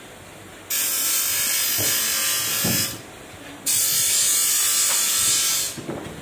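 A handheld tool run in two bursts of about two seconds each, a loud high hissing noise that starts and stops suddenly, with a short pause between.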